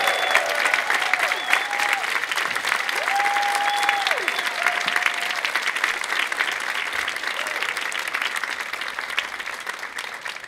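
Audience applauding, with a few long, drawn-out cheers from the crowd over it. The applause slowly dies down toward the end.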